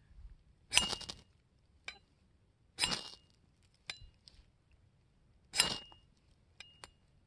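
Spine of a Tramontina bolo machete scraped hard down a new ferro rod three times, each stroke a short rasp followed by a brief metallic ring, with light clicks in between. The strokes are throwing sparks onto fatwood shavings, with the rod's black coating not yet worn off.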